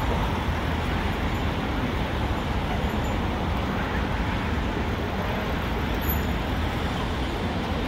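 Steady road traffic noise: a constant, even hum of passing vehicles with no single car standing out.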